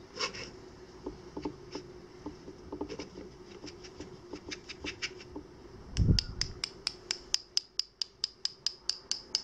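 One paintbrush tapped against another to spatter watercolour paint: scattered light taps, a single dull knock about six seconds in, then a quick regular run of sharp clicks at about four a second.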